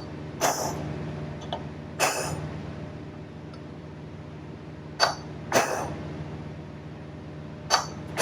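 Hammer striking a punch against a bearing race in a John Deere 24T baler's wheel hub, driving the race out: five sharp metallic strikes at uneven intervals, each with a short ring, over a steady low hum.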